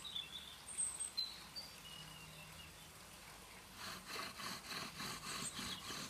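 Bow drill being worked: the wooden spindle, turned by a bow strung with strimmer line, grinds against a wooden board with a rhythmic rasp that starts about four seconds in. Short bird chirps come before it.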